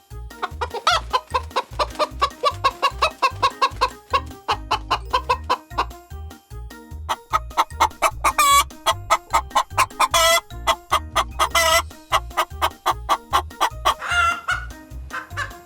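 Chickens clucking in a fast run of short calls, about six a second, with a few louder, harsher calls near the middle.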